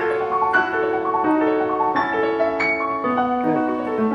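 Background music: a keyboard playing a melody over held chords, the notes changing about every half second.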